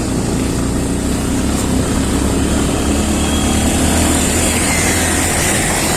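Motorcycle engine running steadily under way, with wind and road noise on the microphone.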